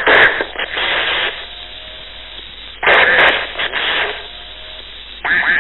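UHF CB radio receiver putting out three bursts of static hiss, each a second or less, with a quieter hiss between them.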